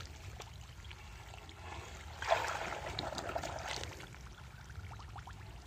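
Water trickling and splashing in a muddy pond being pumped out, with a louder stretch of splashing starting about two seconds in and lasting under two seconds. A low, steady hum from the pond pump runs underneath.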